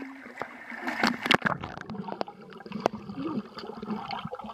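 Pool water splashing and gurgling right at a waterproof camera as it is splashed and dipped under the surface, with the sharpest splashes about a second in.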